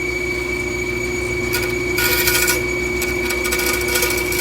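Bandsaw running with a steady, odd high whistle over its hum. Short rasping bursts come as a small wood moulding is shaved against the blade, the longest about two seconds in.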